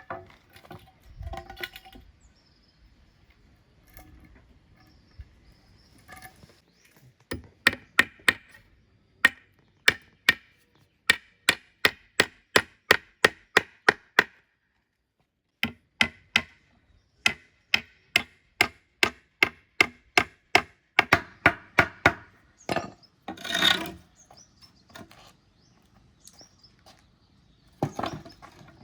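Hammer striking nails into wood in two long runs of quick, sharp blows, about three a second, separated by a short pause. A single rougher, louder knock follows shortly after the second run, with a few soft knocks of handling wood at the start.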